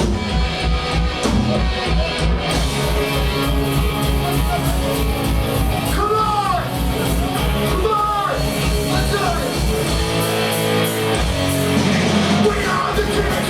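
Punk rock band playing live: fast, steady drums, distorted electric guitar and bass, with shouted vocals in the middle; the drum beat drops out for about a second near the end, then returns.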